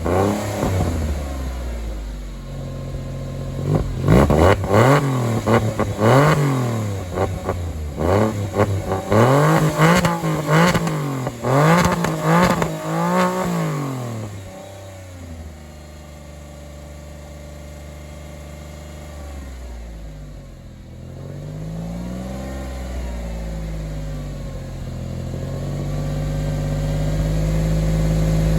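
Porsche 996 911's flat-six engine being revved: about seven quick blips rise and fall one after another. It then settles to a steady idle with one more blip midway, and near the end the engine note grows steadily louder.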